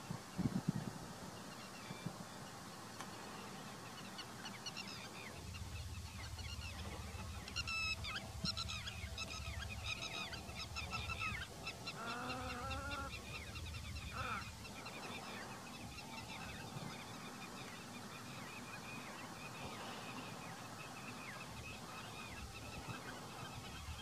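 Wild birds calling: many short, high calls repeat rapidly from about four seconds in, thinning out toward the end, with a deeper call of several pitches around the middle. A low rumble runs under the first half.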